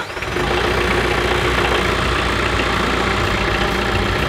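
TYM T574 compact tractor's diesel engine running steadily.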